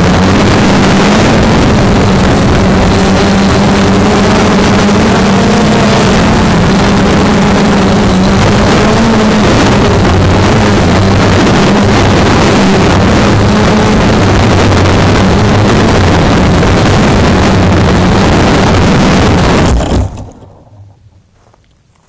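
A small engine running loud and steady with a low hum, shutting off about twenty seconds in.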